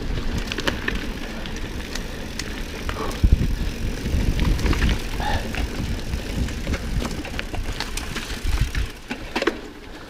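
Mountain bike ridden fast over a bumpy dirt trail, heard from a handlebar-mounted camera: a steady low rumble of tyres and air rush, with scattered clicks, rattles and a few knocks from the bike jolting over the ground.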